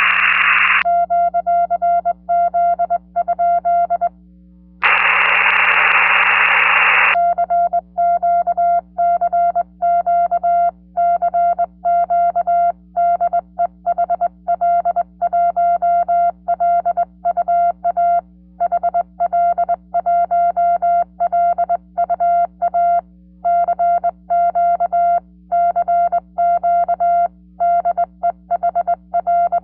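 Morse code sidetone from a ham transceiver, a steady beep of about 700 Hz keyed on and off in dots and dashes by a GHD GT705A straight key. Brief bursts of receiver hiss come in at the very start and again about five seconds in, lasting about two seconds.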